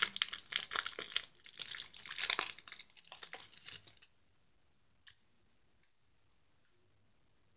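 Plastic wrapper crinkling and tearing as a small LED-strip remote control is unwrapped. The sound stops suddenly about four seconds in, and a single faint click follows about a second later.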